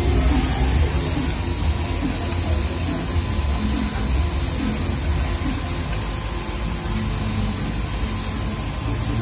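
Manual pantograph engraving machine running, its spindle driving the cutter steadily through a plastic engraving-laminate tag plate as it routes out letters, a continuous hiss with a faint steady whine.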